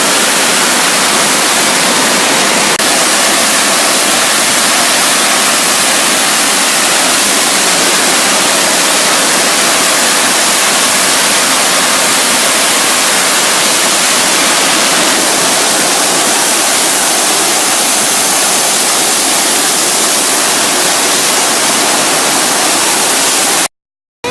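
Loud, steady rushing hiss of glass-container factory machinery and blowing air on the production floor, strongest in the high range. It cuts off abruptly near the end.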